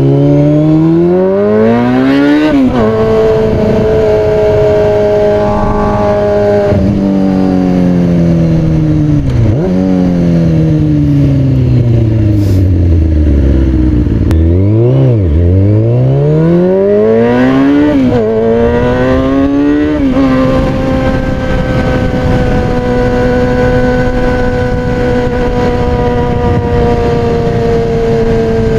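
2003 Kawasaki ZX-6R 636 inline-four with an aftermarket MotoGP-style exhaust, ridden hard. It accelerates with a rising pitch broken by quick upshifts, slows down, then accelerates again through several gears and settles into a steady cruise for the last several seconds.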